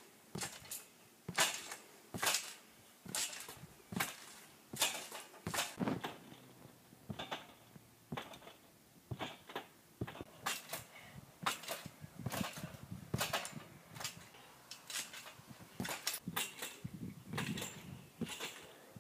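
Trampoline springs creaking and clanking as children bounce and flip on the mat, a sharp clack about once or twice a second.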